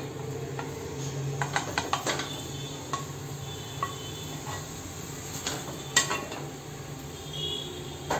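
Scattered light taps and scrapes of a paper plate and a wooden spatula against a nonstick kadhai as crumbled paneer is tipped into melted ghee and stirred, over a steady low hum.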